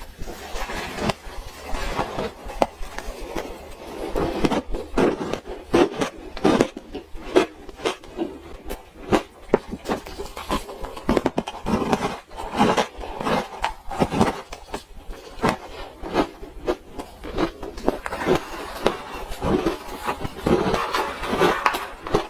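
Close-miked chewing and crunching of frozen orange ice, a dense, irregular run of crisp crunches.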